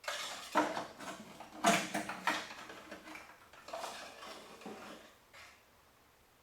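Irregular scraping and light clattering of parts being handled, loudest about two seconds in and dying away after about five seconds.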